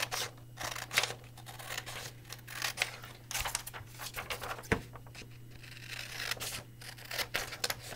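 Scissors cutting through a sheet of paper in a series of short, irregular snips, with the paper rustling as it is handled and turned.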